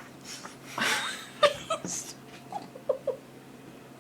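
Stifled giggling: a breathy burst of laughter about a second in, then a string of short, quick squeaky giggles.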